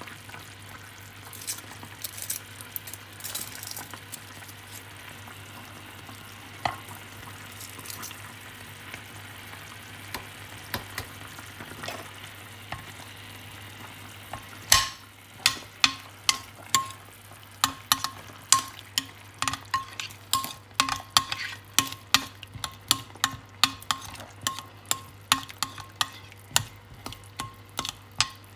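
Chicken drippings sizzling in a glass roasting dish on the hob, with a few scattered clinks. About halfway in, a spoon starts stirring and scraping against the glass, giving regular clinks two or three times a second as a stock cube is worked into the drippings for gravy.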